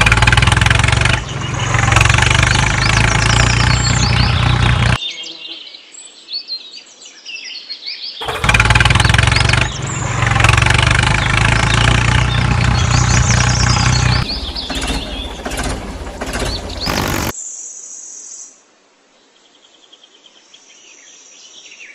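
A tractor engine sound effect runs in two stretches of about five and six seconds, each cutting in and out abruptly. Birds chirp throughout, and near the end only the birds are left.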